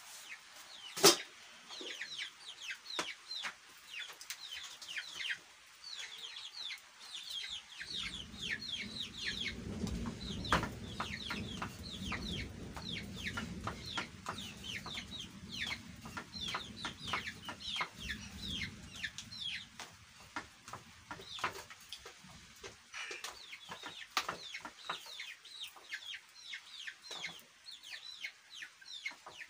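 Young chicks peeping steadily, many short falling chirps a second. A sharp knock comes about a second in, and a low rumble runs from about eight seconds in to about twenty.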